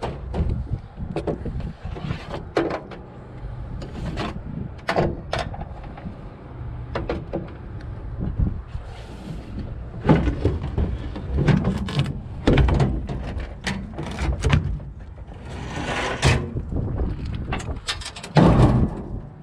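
Irregular metallic knocks and clanks as the sheet-metal engine cover panels of a John Deere 4400 combine are unfastened and lifted off, with a few louder stretches about a second long from a cordless power tool.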